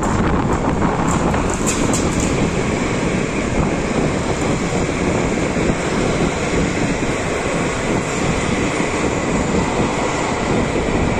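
PKP Intercity passenger coaches rolling past close by: a loud, steady rumble of wheels on the rails, with a few sharp clicks in the first couple of seconds.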